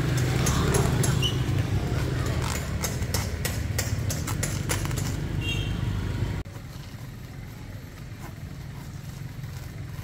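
Motorcycle engine running steadily, with scattered clicks and knocks over it. About six seconds in the sound drops suddenly to a quieter, lower hum.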